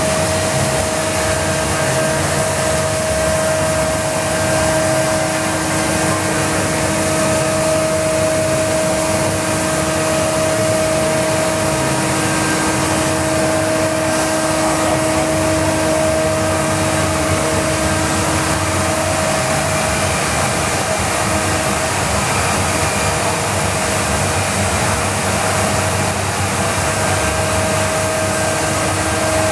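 Biesse Rover 23 CNC machining center running: a steady whirring hum with two held tones, unchanging throughout.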